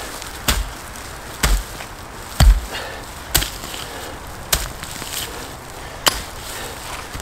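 Short-handled pick striking into leaf litter and soil while digging a hole: six chopping blows about a second apart, the heaviest about two and a half seconds in.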